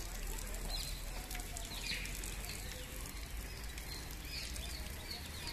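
Steady outdoor background noise with a few short bird chirps scattered through it.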